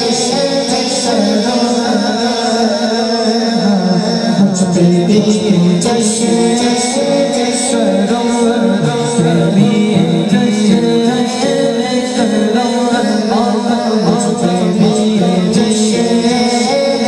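A boy singing a naat, an Urdu devotional poem, his voice carried through a microphone and PA system.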